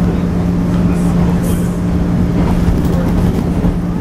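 JR 113 series electric train's MT54 traction motors humming at a steady speed, one constant tone over the rumble of wheels on the track, heard from inside the carriage.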